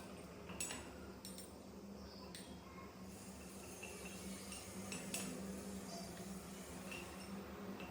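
A few light metallic clinks and taps, spaced irregularly, over a faint steady low hum.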